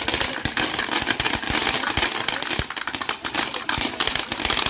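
A string of small firecrackers going off: a rapid, unbroken run of sharp pops.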